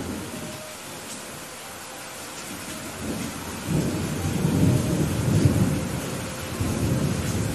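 Heavy rain falling steadily, with a roll of thunder that builds about three seconds in, is loudest in the middle and dies down near the end. A brief low rumble of thunder comes right at the start.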